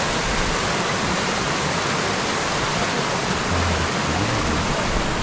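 Waterfall and mountain stream rushing steadily: an even, unbroken hiss of falling water.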